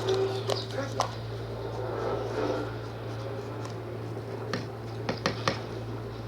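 Sharp clicks and light scraping of a spoon and bowl being handled while the slime mixture is stirred, a few clicks near the start and a quick cluster of them past the middle, over a steady low hum.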